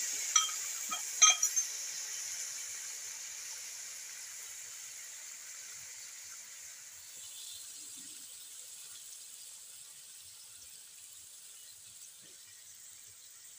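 Spiced chicken pieces in a hot wok sizzling just after water is poured in: a steady hiss that slowly fades as the water heats. A few sharp metal clinks come in the first second and a half.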